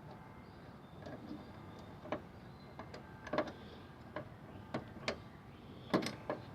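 Irregular light clicks from an old skeleton-key lock set's latch and spring parts being handled and worked, about a dozen over several seconds. The substitute spring being tried falls just short of working the latch.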